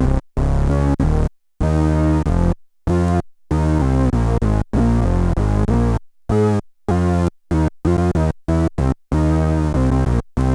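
Fender Jazz Bass played through an Electro-Harmonix Bass Mono Synth pedal, recorded direct: a run of synth-bass notes at varying pitch, each stopping abruptly into brief silence before the next.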